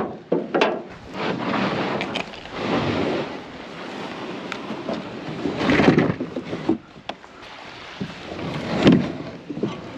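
Light breeze buffeting the microphone: a rushing noise that swells and falls, strongest about six and nine seconds in.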